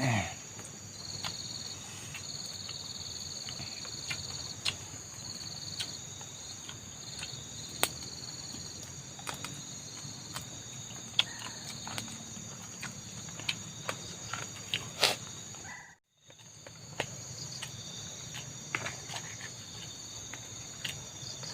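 A steady, high-pitched chorus of insects, with scattered light clicks and ticks over it. The sound cuts out completely for a moment about sixteen seconds in.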